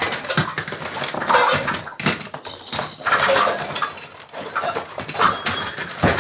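Cartoon crash sound effects: a busy string of clattering knocks, bangs and rattles, with a few short pitched squeaks mixed in.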